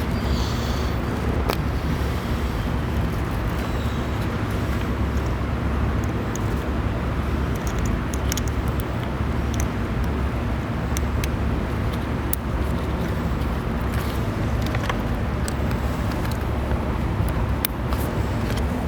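A steady low hum with a constant noisy rumble, with scattered light clicks and ticks as wiring connectors are handled and plugged together.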